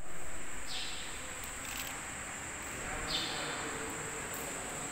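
Insects outside making a steady high-pitched drone, with short high chirps about every two seconds.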